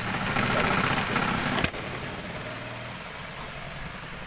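Spin drum of a portable twin tub washing machine starting up, its electric motor running with a steady hum. A sharp click comes about a second and a half in, after which the hum carries on more quietly.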